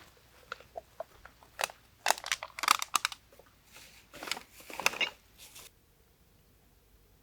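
Irregular crunching and crinkling, a run of sharp clicks and rustles that stops abruptly about six seconds in.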